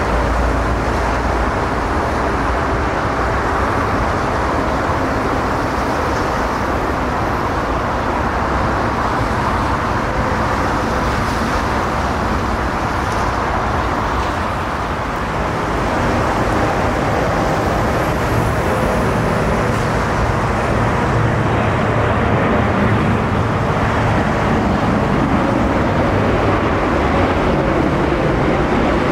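Four GEnx jet engines of Lufthansa Boeing 747-8 airliners landing, heard as a steady jet noise with faint held engine tones. It dips briefly about halfway through as one aircraft gives way to the next.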